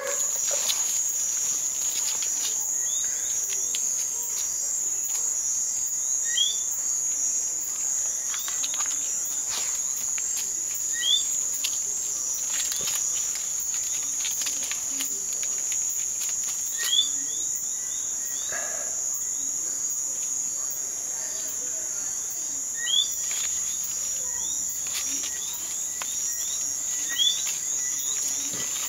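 Night-time insect chorus: a steady, high-pitched trill without a break. A short rising chirp cuts through it every few seconds, and there are scattered light clicks and rustles.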